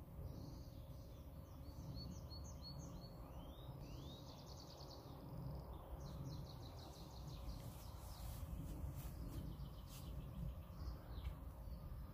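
Small birds calling in the woods: repeated high chirps and trills, some short rising calls, and a quick series of chirps about halfway through, over a steady low rumble. A few sharp clicks come about two-thirds of the way in.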